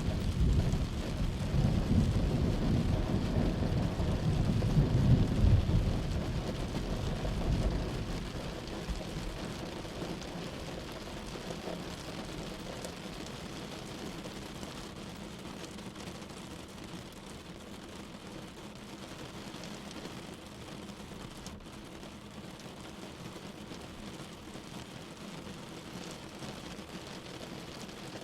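Thunderstorm: a deep rolling rumble of thunder over steady rain, the rumble dying away about eight seconds in and leaving the rain falling steadily.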